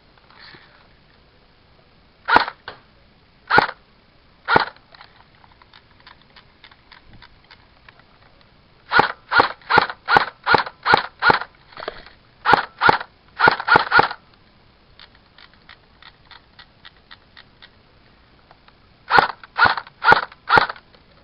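Airsoft rifle firing: three single shots about a second apart, then a quick string of about eight shots at roughly three a second, a few more, and a group of five near the end. The rifle is being test-fired to find out why BBs keep jamming in it.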